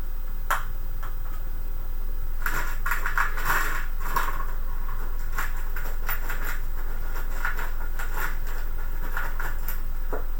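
Light metallic clicks and clinks of small metal parts and screws being handled, thickest a few seconds in, over a steady low electrical hum.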